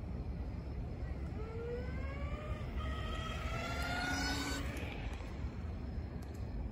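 Hoverboard go-kart's electric hub motors whining, the pitch rising steadily for about three seconds as it speeds up and then dying away, over a low steady rumble.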